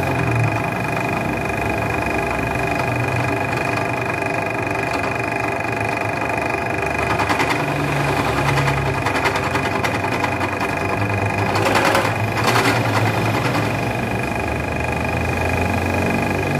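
Bench drill press motor running with a steady whine while its cutter notches valve recesses into a motorcycle piston clamped in a cross-slide vise, with rougher cutting noise around twelve seconds in.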